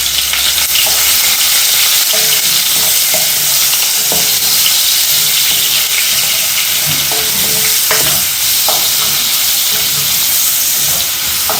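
Onions frying in hot oil in a pan, sizzling steadily, with a few light knocks now and then.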